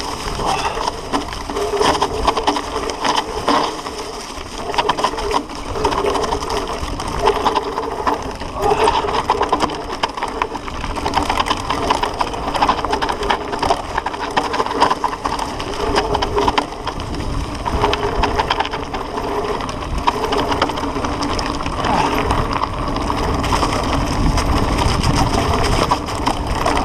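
Mountain bike descending a rough trail: continuous rattling and clatter of the bike, with the tyres crunching over dry leaves, stones and gravel.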